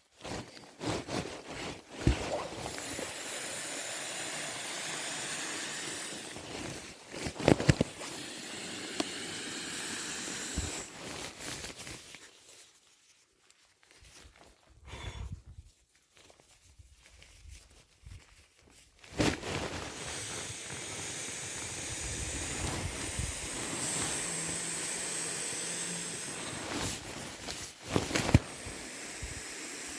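Wind gusting with a steady hiss, dying away for several seconds in the middle, broken by a few sharp knocks.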